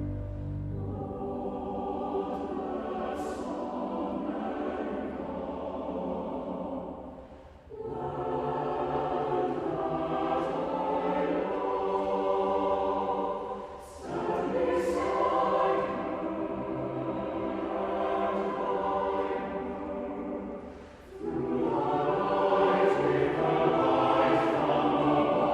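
Choir singing a slow sustained passage in long held chords, in four phrases with short breaks between them.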